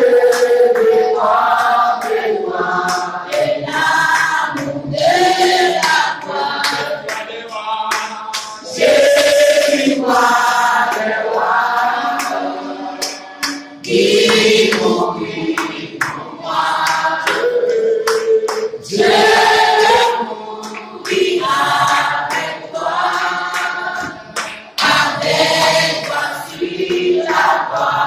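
Small mixed group of men and women singing a hymn together unaccompanied, in sung phrases of a few seconds with short breaks for breath between them.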